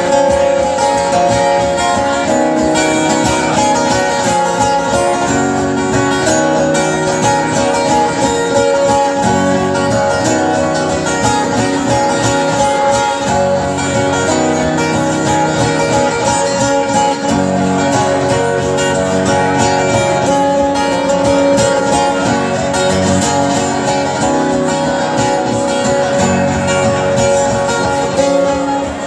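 Acoustic guitar strummed steadily in a long instrumental break between sung verses.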